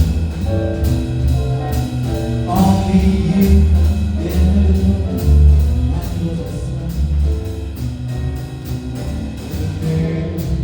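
A band playing live, with a steady drum beat under a bass line and a moving melody.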